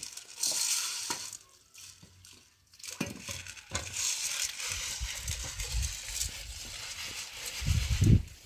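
Water running from an outdoor tap into a metal pot as it is rinsed, with water splashing and sloshing in the pot. A louder low slosh comes near the end.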